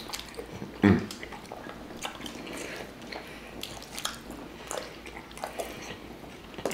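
Close-miked eating sounds from a saucy hot wing boil: chewing, wet squishes and small smacking clicks scattered throughout, with one louder burst about a second in.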